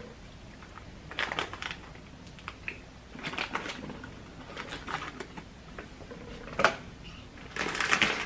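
A foil snack bag of tortilla chips crinkles and crackles as it is handled, in short irregular bursts with a sharper crackle near the end.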